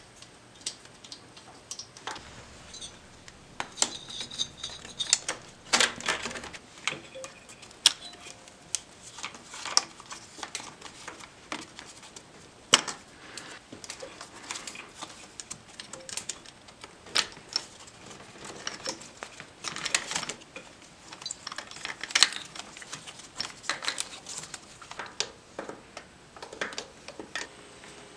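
Irregular clicks and metallic clinks of wrenches and engine parts being handled during top-end disassembly of a Harley-Davidson Twin Cam, with plastic wiring connectors being worked loose.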